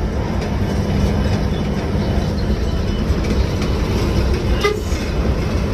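Hino AK8 bus's diesel engine running under way with steady road noise inside the cabin, and a brief horn toot near the end.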